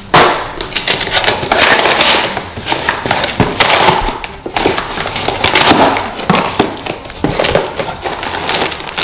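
Packaging being handled and pulled open close to the microphone: loud, continuous crinkling and rustling with irregular sharp crackles, starting abruptly.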